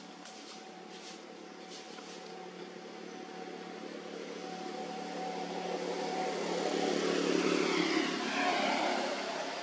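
A motor vehicle passing by over a steady engine-like hum, growing louder to a peak about eight seconds in with a falling pitch, then fading.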